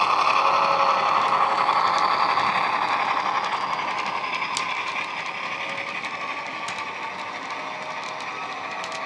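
Model Dapol Class 68 locomotive's DCC sound decoder playing a JMC Class 68 diesel engine sound through a pair of megabass speakers, steadily getting quieter as the locomotive moves away. Light clicks from the trailing wagons' wheels on the track.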